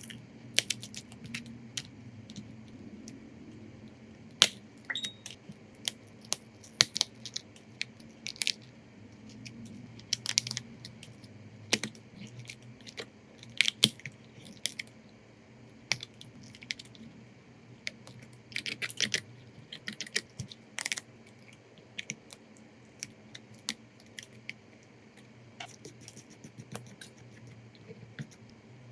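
Irregular sharp clicks, taps and small crunching scrapes of hand tools working on a smartphone during a back-glass repair, over a low steady hum.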